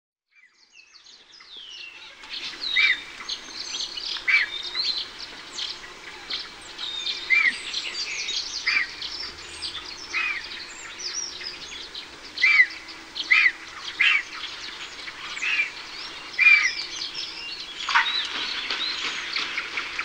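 A mix of wild birds calling after a brief silence. Sharp arching call notes repeat about every second or two over a busier spread of higher chirps.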